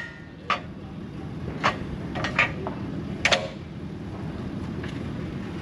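A steady low engine rumble with about five short, sharp knocks or clanks spread over the first three and a half seconds.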